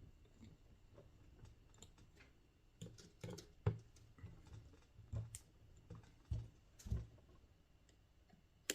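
Faint, irregular clicks and light knocks of small parts and hand tools being handled during bench assembly of a model helicopter frame. A sharper click comes near the end.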